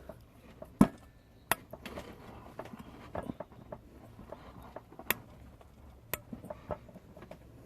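Scattered sharp metal clicks and knocks as a spark plug is pressed and worked against a valve spring retainer to try to push the valve keepers onto the stem. The loudest knock comes about a second in, with lighter ticks through the rest.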